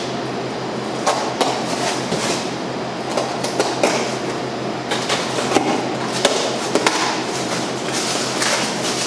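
Cardboard box and packaging being rummaged through and unpacked: rustling with irregular knocks and clatters, over a steady low hum.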